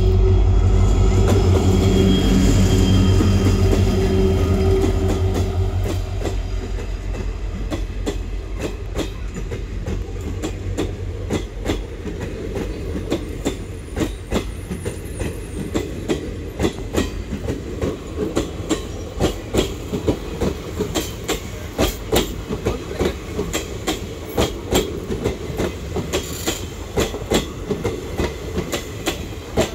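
WDP4 diesel-electric locomotive's EMD two-stroke engine running loud and low as it passes, fading after about five seconds. Then a string of passenger coaches goes by with a steady, rhythmic clickety-clack of wheels over rail joints.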